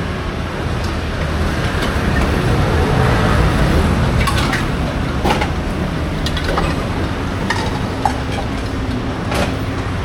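Busy street ambience: a steady din of traffic rumble and general bustle, with a scattering of short sharp clacks and knocks through the middle.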